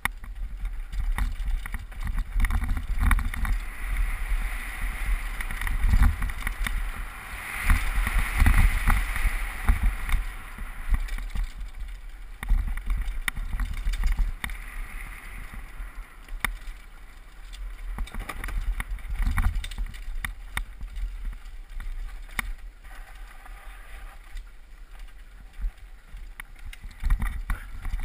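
Downhill mountain bike descending a dirt and gravel trail at speed: tyres hissing and crunching over the ground, with frequent sharp rattles and knocks from the bike over bumps, and a low rumble of wind buffeting the microphone. The hiss swells loudest about a third of the way through.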